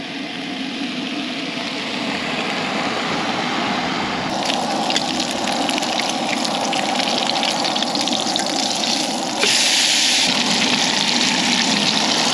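Strips of bacon sizzling and spitting in their grease in a frying pan on a Coleman camp stove, a steady frying hiss that gets louder about three-quarters of the way through.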